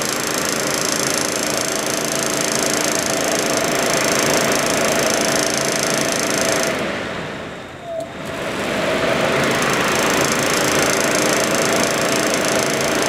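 1994 Saab 9000 AC condenser fan's electric motor running off a 12 V battery, the blade whirring with a steady hum. About six and a half seconds in it slows and drops in pitch, then with a click about a second later it spins back up to speed.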